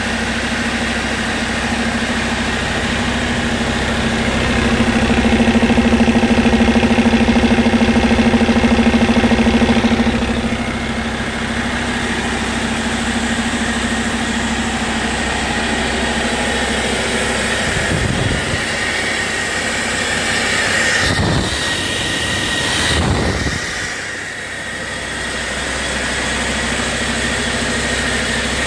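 2015 Cummins ISX15 inline-six diesel engine running on a test run. It speeds up and runs louder for about five seconds near the start, drops back, then makes a few quick rises and falls in pitch later on.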